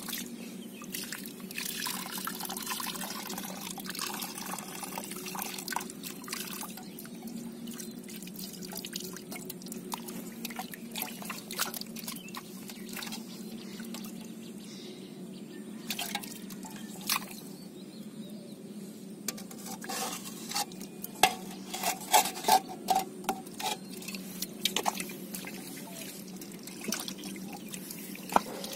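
Muddy water splashing, dripping and sloshing in a steel bowl as water and eels are scooped up and poured into a clay pot, with a run of louder splashes about two-thirds of the way through, over a steady low hum.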